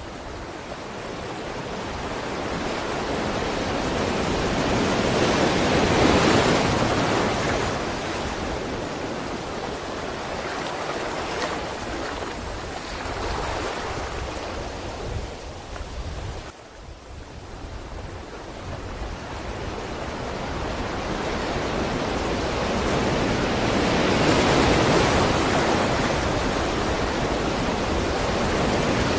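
Ocean waves breaking and washing on a shore in a steady rush of surf, swelling to a crest about six seconds in, dropping briefly past the middle, and building again to a second crest near the end.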